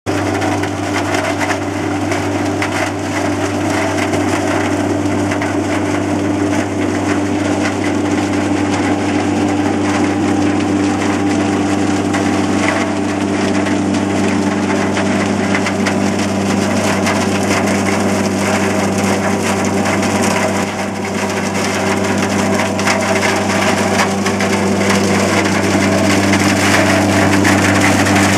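Tractor-mounted Sweere Trac Pix green bean harvester at work: the tractor engine runs at a steady note under a continuous crackling, crunching clatter from the picking drum stripping the bean plants. It grows a little louder near the end.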